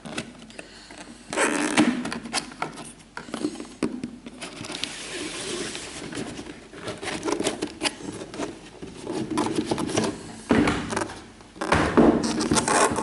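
Cardboard shoebox being handled and opened: the lid scraping and knocking, with rustling in the middle and heavier thumps near the end.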